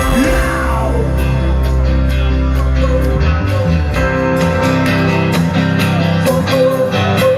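Live rock band playing an instrumental passage at the end of a song, with a held note over a steady drum beat of about two hits a second. The deep bass drops out about three seconds in.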